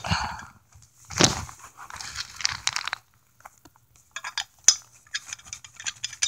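Hands handling a hollow-handle survival knife, with rustling and scraping, then a run of small sharp clicks about four seconds in as the screw-on cap of the hollow handle is turned back on.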